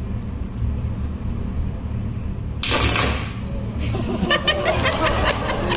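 Coconut shell halves struck to imitate horse hoofbeats on a hard surface: after a short scuff a couple of seconds in, a quick, irregular run of clops starts about four seconds in. A low rumble of background noise runs underneath.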